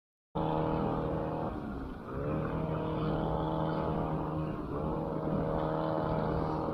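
A motor running steadily with a constant low hum and overtones; it cuts in abruptly just after a silent edit, and its pitch wavers briefly twice.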